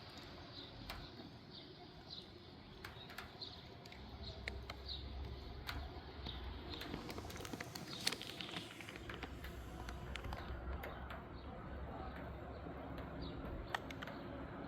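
A small bird chirps over and over, about twice a second, through the first half. Scattered light clicks and taps run throughout, and a low rumble of wind on the microphone swells about four seconds in.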